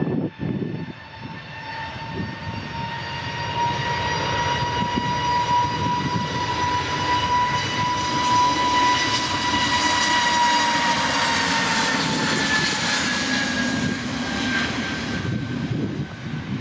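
Airbus A320neo's CFM LEAP-1A turbofans at takeoff power as the jet accelerates down the runway past the listener. A steady whine near 1 kHz with higher overtones rides over a rush of jet noise, swelling to its loudest about two-thirds of the way through. The whine then drops in pitch as the aircraft passes and moves away.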